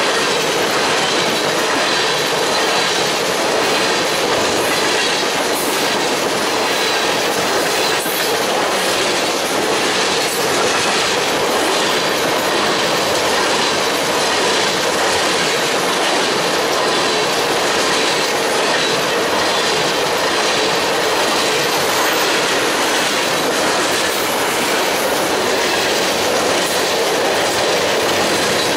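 Freight train of tank cars rolling past at close range: a steady, loud noise of steel wheels running on the rails.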